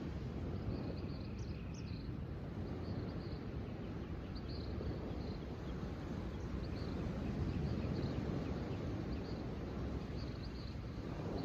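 Outdoor nature ambience: a steady low rushing noise, with short high bird chirps repeating every second or so over it.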